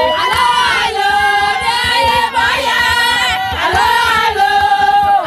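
A group of women singing together, unaccompanied, in long held notes that slide from one pitch to the next.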